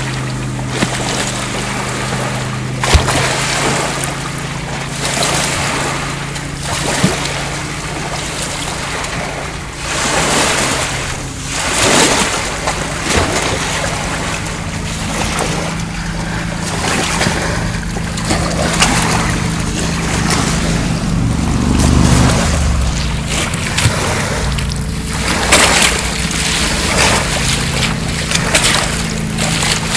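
Small lake waves washing up onto a sand beach in repeated surges, with splashes as a dog bites at the incoming water. A steady low hum runs underneath.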